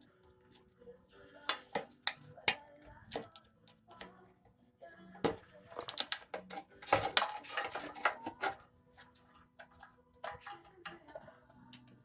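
Sharp clicks, clinks and rattles of plastic wire-harness retaining clips being pried out of a car's radiator support, coming in a few separate snaps and then a busy cluster of clatter in the middle.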